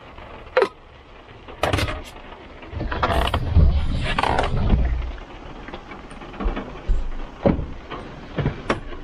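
Inside a truck cab on the move: a low rumble with scattered sharp knocks and clunks, swelling to a heavier, louder rumble for a couple of seconds near the middle.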